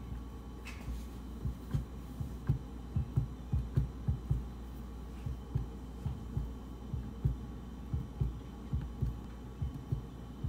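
A fork pressed repeatedly along the edge of calzone dough on a wooden cutting board, sealing it: a run of short, dull knocks, a few a second, over a steady low hum.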